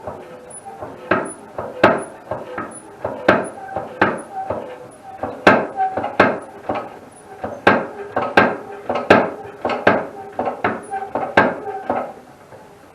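Repeated metallic clanks, about one or two a second, each with a short ring, from a Harbor Freight lift table being worked and pumped up.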